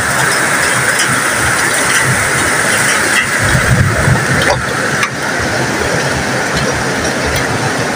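Heavy rain pouring down, a loud steady hiss, with a brief low rumble about halfway through.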